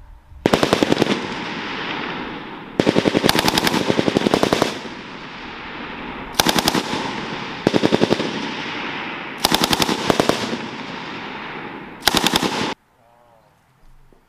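Belt-fed machine gun firing six bursts of automatic fire, some short and some long, each rolling off in an echo across the open range.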